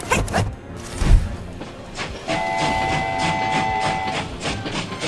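A heavy thump about a second in, then a cartoon train horn sounds a held chord for about two seconds over a quick, regular clatter of rolling train wheels.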